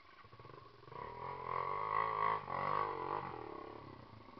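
Dirt bike engine revving, its pitch wavering up and down, loudest about two seconds in and easing off near the end.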